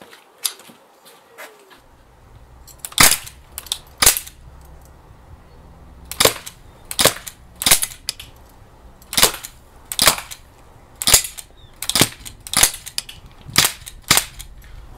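Crosman 1077 CO2 air rifle fired about a dozen times in an uneven string, each shot a short sharp crack, with the CO2 running low.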